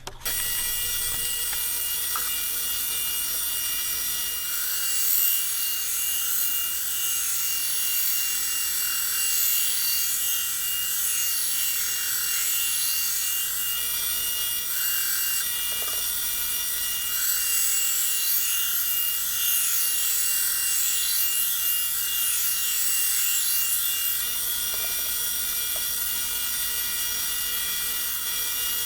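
A big belt sander running with a steady motor whine while a knife bevel is ground freehand against the belt, the grinding hiss swelling and easing as the blade is pressed on and lifted.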